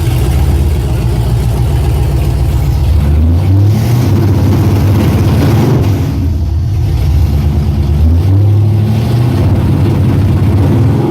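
Holden Commodore drag car's engine running loud and being revved against its newly set-up MSD two-step launch rev limiter, the pitch rising and falling back twice.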